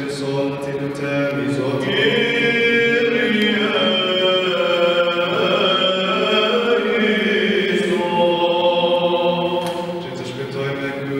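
Orthodox liturgical chant of the baptism service, sung by several male voices together: long held notes with a melody that moves slowly up and down over a steady low tone, echoing in the church.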